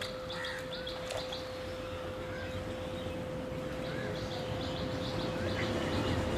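Songbirds chirping: quick runs of short, high notes, with a few curving whistled calls. A steady hum sounds underneath.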